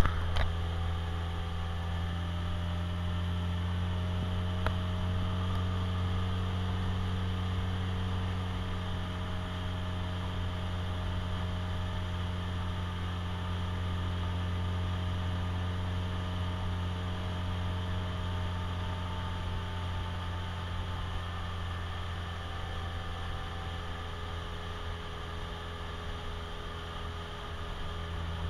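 Engine of a motorized outrigger boat (bangka) running with a low, steady hum.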